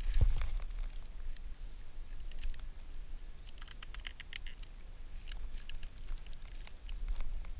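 Dry leaves and twigs crackling and rustling in short scattered clicks as a hand gathers tinder on the forest floor, with a low thump right at the start.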